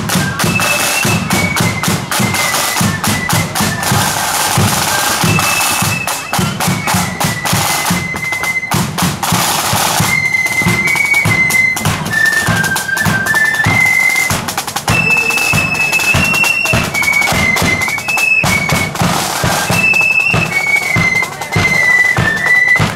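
A marching flute band playing a tune, the flutes sounding one high melody line together, with side drums and a bass drum keeping the march beat.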